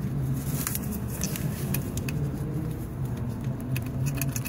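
Scattered light metallic clicks, more of them near the end, from a socket wrench working the 8 mm hold-down bolt of a crankshaft position sensor on a Maxxforce DT bell housing. A steady low hum runs underneath.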